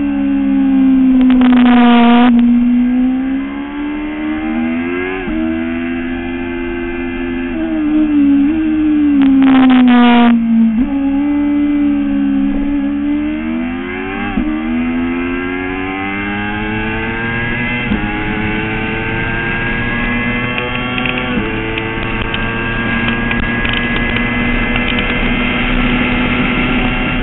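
Onboard sound of a sport motorcycle's engine at speed on a race track. The revs fall and rise through the corners, then climb in steps through several upshifts in the second half.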